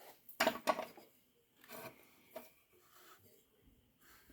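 Metal clinks and rattles of tools and engine parts being handled, loudest about half a second in, followed by a few faint knocks and rubs.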